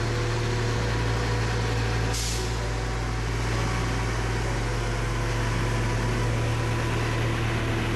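Heavy truck's engine running steadily, with a brief hiss about two seconds in.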